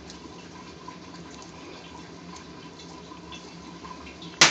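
Steady kitchen background noise with faint soft crackles as gloved fingers crush grilled garlic cloves into a bowl of grilled tomatoes and onion. A single sharp knock near the end.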